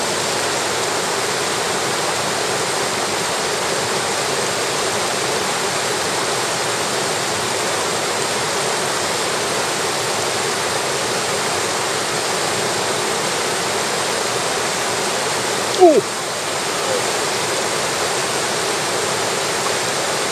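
Mountain stream rushing steadily over shallow rocks and riffles. A little over three-quarters of the way through there is one short, loud squeak that falls quickly in pitch.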